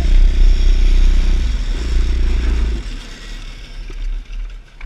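Small motorcycle engine running under throttle with heavy wind rumble on the microphone, easing off about three seconds in, after which only a low hum and a few light knocks remain.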